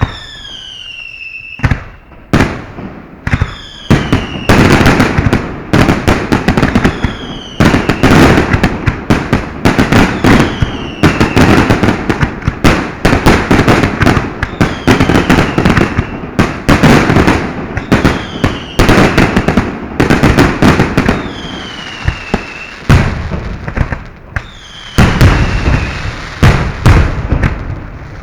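Fireworks barrage: dense, rapid cracks and bangs over deep thuds, with a whistle falling in pitch every couple of seconds. It starts suddenly out of quiet.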